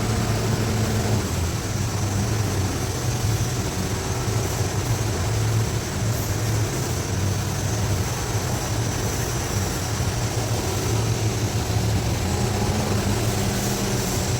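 TIG welding arc on carbon steel running steadily, an even hiss with a low hum underneath.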